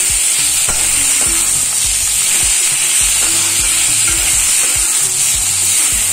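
Onions and chopped tomatoes sizzling in hot oil in a metal kadai while a perforated steel spoon stirs them, scraping and clicking against the pan again and again over a steady hiss of frying.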